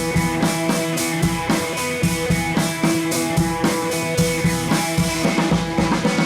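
Background music with a steady drum beat and held guitar-like tones.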